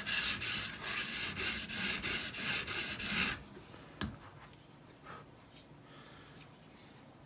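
Edge Pro sharpening stone drawn across a knife edge in quick rasping test strokes, a couple a second, for about three seconds, then it stops; a single click about four seconds in. The strokes test where the stone meets the marked edge to set the sharpening angle.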